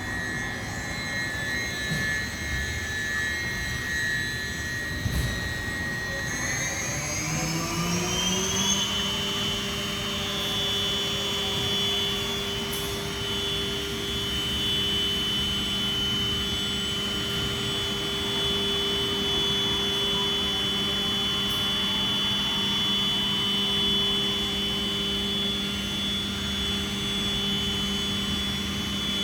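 Johnford VMC3000S vertical machining centre running with a steady whine. About seven seconds in, the whine glides up in pitch over a couple of seconds, then holds steady at the higher pitch.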